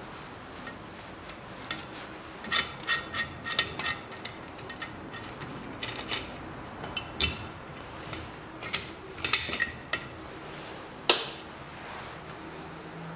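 Sharp metal clicks and clinks from a valve spring compressor being moved and handled on a Toyota 3S-FE cylinder head during valve removal, in several irregular clusters with the loudest clink near the end.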